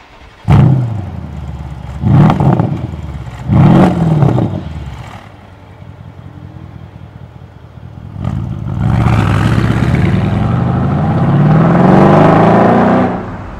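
Mercedes-AMG SL63's twin-turbo V8 through a MEC Design aftermarket exhaust: three sharp throttle blips from idle, each rising and falling, then a few seconds of idle. The car then pulls away and accelerates hard, the engine note climbing steadily until it drops off near the end.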